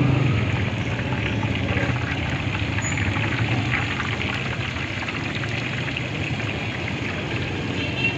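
Battered pieces deep-frying in a large karahi of hot ghee, a steady dense sizzle and crackle.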